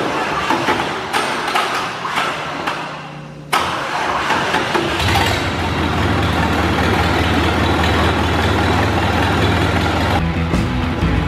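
Old Ford truck engine cranking, catching with a sudden jump in loudness about three and a half seconds in, then running steadily. Rock music comes back in near the end.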